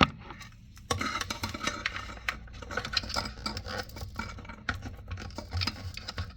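Rubbing, scraping and light clicking of a rubber hose and plastic toilet fill-valve parts being handled and fitted together; the handling noise picks up about a second in.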